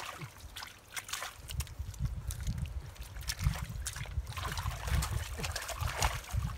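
Bare hands scooping and slapping wet mud and muddy water, with repeated irregular splashes and squelches.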